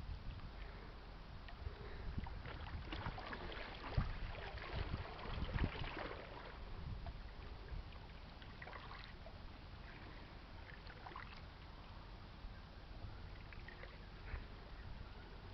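Outdoor river ambience: wind rumbling on the microphone over a steady low noise, with scattered light crackles, most of them in the first half.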